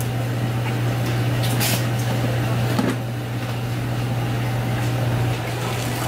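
A steady low hum with faint background noise over it and a brief hiss about a second and a half in.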